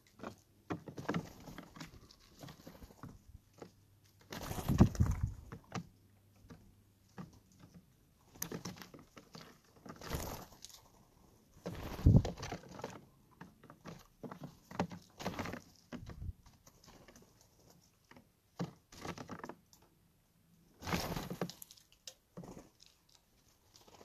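Steller's jays coming and going at a tabletop peanut feeder: scattered taps and scratches of feet and bills on the board, with three louder bursts of wing flapping close by, about five, twelve and twenty-one seconds in.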